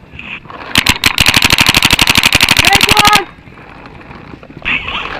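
Paintball marker firing a rapid burst, about a dozen shots a second, starting about a second in and stopping abruptly after roughly two and a half seconds.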